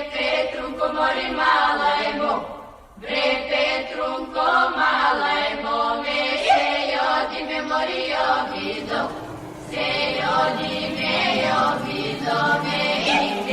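A group of voices chanting or singing together in sustained, drawn-out tones, with short breaks about three seconds in and again near the middle.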